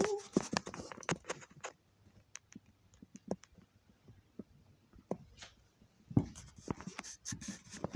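Scattered clicks, taps and knocks, sparse and irregular, with a denser run of thumps about six seconds in.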